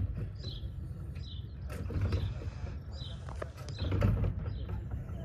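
Propeller of a BA Swallow II being pulled through by hand with the engine switched off, priming it before a hand-swing start: the engine turns over with creaks and clicks, louder about two and four seconds in. Wind buffets the microphone throughout.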